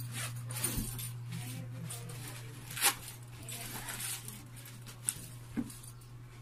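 Hands rummaging through a fabric bag: cloth rustling and contents shifting, with a sharp click about three seconds in and a couple of lighter ticks later. A steady low hum runs underneath.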